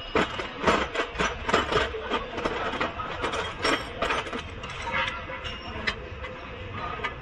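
Metal hand tools working on a car's front suspension: a wrench clicking and clinking against the tie rod end and ball joint nuts in a string of irregular sharp taps.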